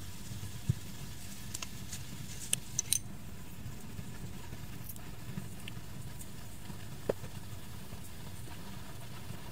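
Quiet room tone with a low steady hum and a few soft, brief clicks of a crochet hook and yarn being worked as a stitch is made and the end is finished off.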